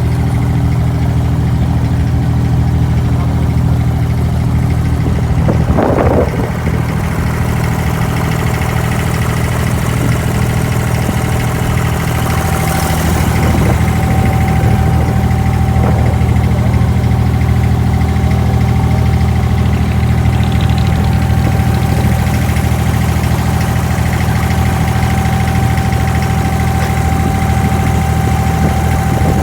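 Abra's inboard diesel engine running steadily, heard from on board the boat, with a brief rush of noise about six seconds in.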